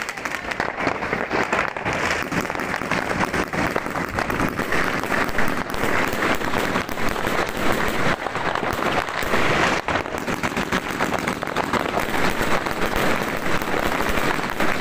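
Many fireworks and firecrackers going off at once: a dense, unbroken crackle of overlapping bangs and pops.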